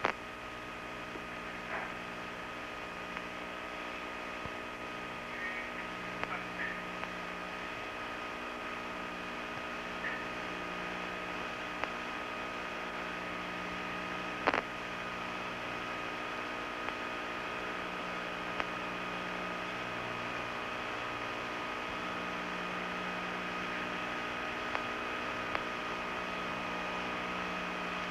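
Steady hum and hiss of the space station's cabin fans and equipment, with several steady tones. A few faint ticks, and one sharp click about halfway through.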